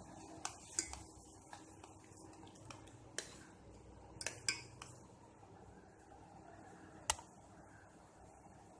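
Kitchen utensils and dishes clinking: about ten sharp, separate clinks scattered over the first seven seconds, the loudest one near the end.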